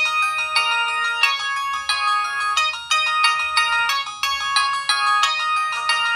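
Samsung Gravity 2 (SGH-T469) cell phone playing one of its built-in ringtones: a fast electronic melody of short chiming notes that starts abruptly and runs on without a break.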